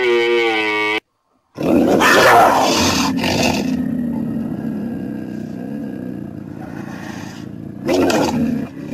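Tiger roaring: a loud rough roar begins about a second and a half in and fades into a long growl, with a second shorter roar near the end. Before it, a low drawn-out animal call with a steady pitch ends about a second in.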